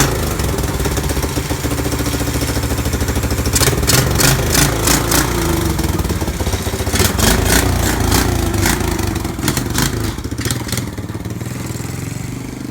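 1972 Honda XL250's single-cylinder four-stroke engine running and being revved up and down, with stretches of rapid sharp clattering in the middle and the sound easing off near the end. It has just been brought back to life after more than 35 years unused.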